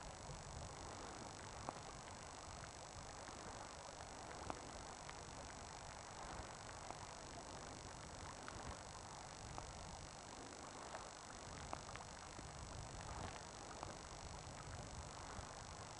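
Faint wind rumbling on the microphone over a steady hiss, with scattered light ticks.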